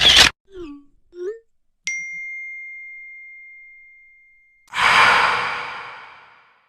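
A run of short comedy sound effects: a brief noisy burst and two quick little pitch glides, then a single bell-like ding that rings out and fades over a few seconds. About five seconds in comes a long, breathy sigh that tapers away.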